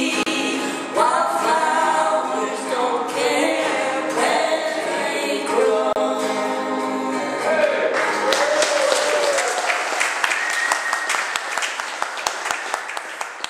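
Two women singing the end of a folk song to acoustic guitars, the song closing about eight seconds in; audience applause follows and fades near the end.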